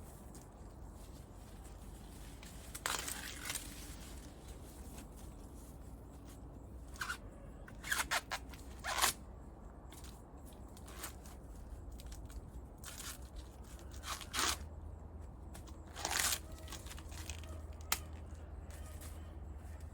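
Sweet corn ears being snapped off the stalks by hand: several short crunching, tearing snaps with leaf rustle, a few seconds apart.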